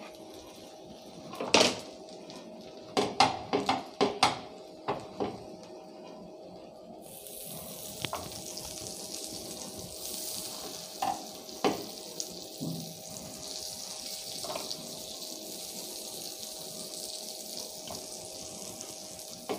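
A few knocks as burger bun halves are set down on a hot iron tawa, then, from about seven seconds in, a steady sizzle of butter frying under the buns, with an occasional knock.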